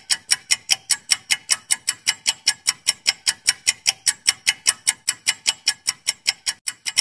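Clock-style ticking sound effect for a quiz countdown timer: sharp, even ticks at about five a second, with a brief break near the end.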